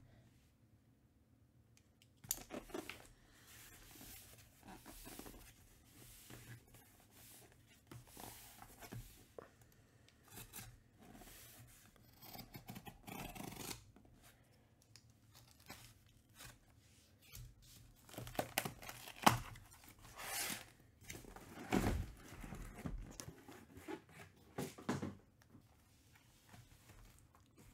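Baseball card pack wrappers being torn open and the packs and cards handled: faint, irregular tearing and rustling, with louder rips in the second half.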